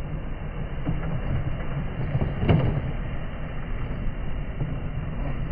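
Electric RC monster truck on a Traxxas Slash 2WD chassis running over loose gravel: a steady rumble of motor and tyres on stones, with a single sharp knock about two and a half seconds in.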